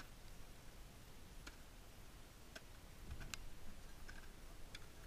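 Ice axe picks striking glacier ice: a few faint, sharp ticks at uneven intervals, the strongest a little past the middle, over a low rumble.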